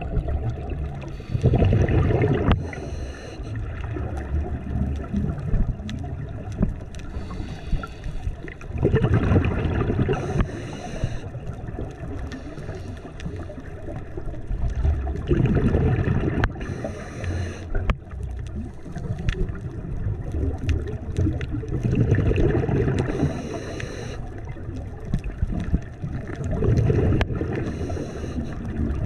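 Scuba diver breathing through a regulator, heard through the camera's underwater housing: five breaths about six seconds apart, each a loud gurgling rush of bubbles followed by a short hiss.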